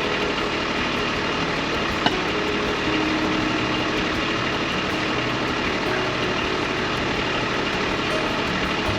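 Kubota B2301 compact tractor's three-cylinder diesel engine running steadily while working the backhoe, with a single sharp knock about two seconds in.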